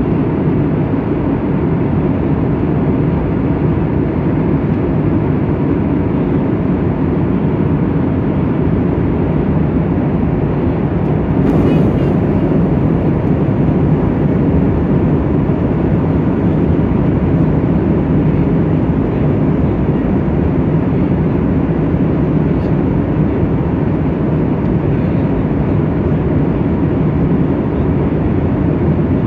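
Steady jet airliner cabin noise in flight: engine and airflow noise heard inside the cabin, unchanging throughout, with a brief click about halfway through.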